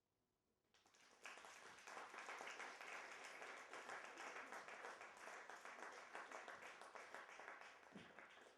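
Audience applause, many hands clapping. It swells up about a second in, holds, and dies away near the end.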